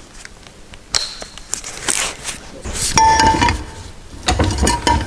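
Metal clinks and clanks as a metal exhaust adapter pipe is handled and clamped in a bench vise. The loudest knock, about three seconds in, leaves the pipe ringing briefly, and it rings again after a few more clinks near the end.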